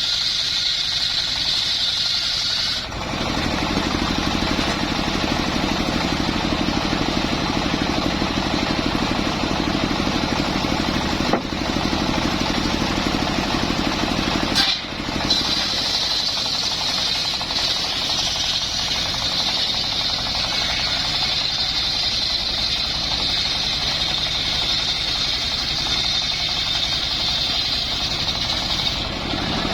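Engine-driven wood saw running continuously. A high whine for the first few seconds changes to a lower, heavier sound about three seconds in, then goes back to the high whine after a brief dip about halfway through.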